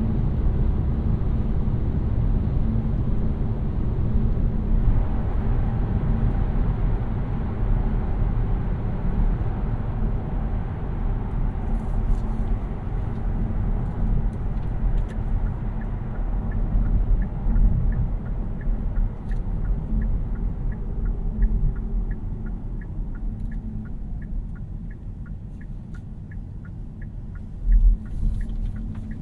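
Road and tyre rumble of a 2018 Kia Niro 1.6 GDi Hybrid on the move, heard inside the car, steady and low, growing quieter near the end. About halfway in, a turn-signal indicator starts ticking about twice a second, and a brief thump comes near the end.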